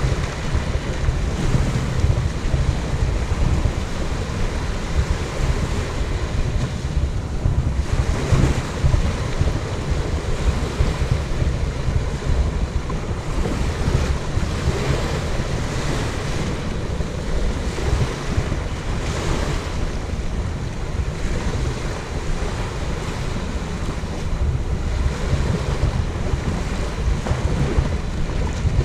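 Small waves washing in and out on the beach, with wind buffeting the microphone in a steady low rumble.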